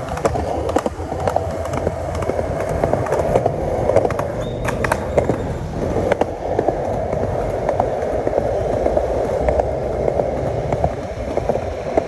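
Skateboard wheels rolling over rough concrete: a steady rumble and rattle, with scattered clicks and knocks as the board is pushed, carved and ridden along.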